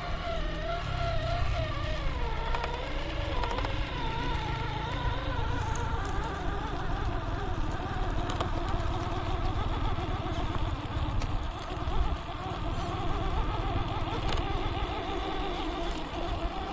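Electric motor and gear whine of an RGT EX86190 4x4 RC off-road car being driven, its pitch wavering up and down with the throttle, over a low rumble.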